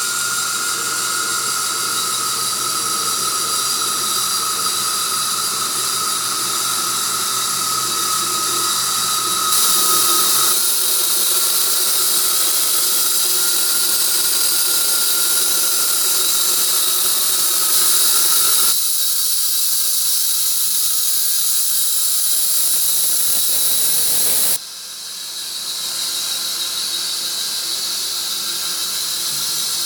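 Sawmill blade cutting through a tree of heaven log: a loud, steady high-pitched whine with hiss, changing abruptly several times.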